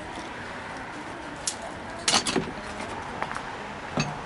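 Several sharp clicks and knocks from handwork on a truck cab's sheet-metal body: one about a second and a half in, a quick cluster of three or four around two seconds, and another near the end, over a steady background noise.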